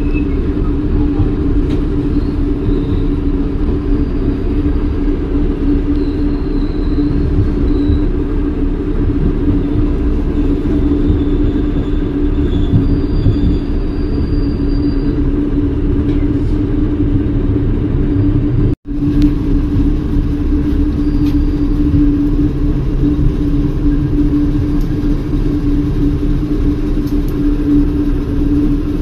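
Inside a moving passenger train: a steady low rumble of the wheels and running gear under a constant hum, with faint high squeals in the first half. The sound cuts out briefly about two-thirds of the way through.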